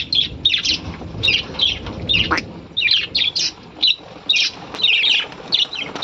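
A flock of budgerigars calling: a quick run of short, harsh squawks and chirps, several a second.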